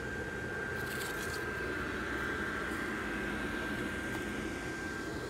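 The Gemmy airblown inflatable's built-in blower fan running steadily: a constant airy rush with a thin, steady high whine.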